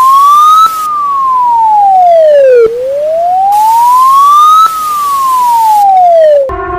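Loud wailing siren tone of an emergency alert alarm: a single electronic pitch that slowly rises and falls, each rise and fall taking about four seconds, over a hiss. Near the end it cuts to a steady, buzzy tone.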